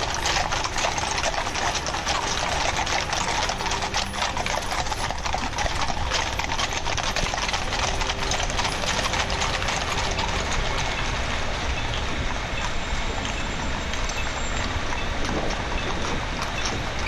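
Hooves of a large column of mounted police horses of the Belgian Royal Mounted Escort clip-clopping on the street as they ride past: a dense, irregular clatter of many hoofbeats that thins somewhat in the later part.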